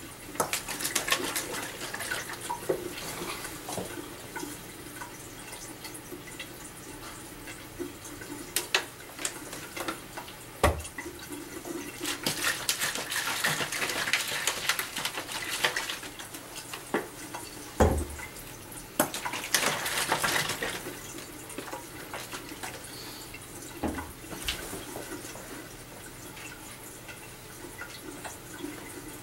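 Liquid pouring and sloshing in plastic bottles in a small tiled room, in several runs, with a few sharp knocks of bottles set down on the counter.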